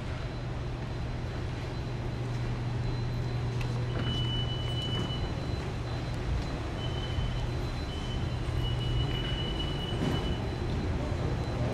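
Underground transit station concourse ambience: a steady low machinery hum with a faint high whine, and a high electronic tone sounding on and off several times from about four seconds in.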